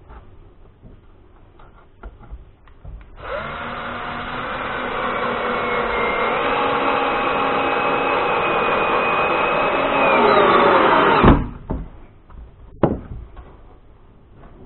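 Cordless drill-driver running into a wooden frame for about eight seconds, its whine stepping up in pitch partway through and falling away as it stops. A few light knocks of handling and one sharper knock follow.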